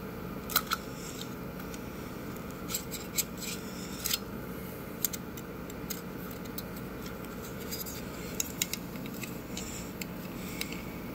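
Small sharp metallic clicks and taps, about a dozen scattered irregularly, from handling and fitting the small parts of a computer cooling fan, over the steady hum of an air conditioner.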